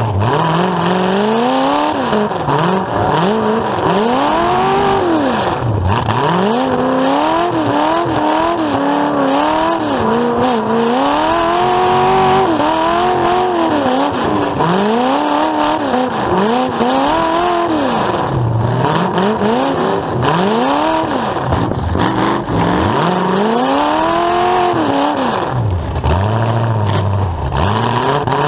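Demolition derby car's engine through open exhaust stacks sticking up through the hood, revving up and falling back over and over, each rise and drop lasting a second or two, as the car is driven hard back and forth.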